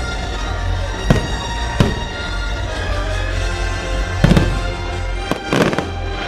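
Fireworks shells bursting with sharp bangs, about five in all, two close together near the end, over steady music playing for the show.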